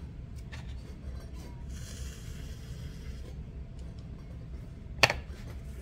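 Electric potter's wheel running with a steady low hum while the wheel head spins, with a few faint clicks and one sharp click about five seconds in.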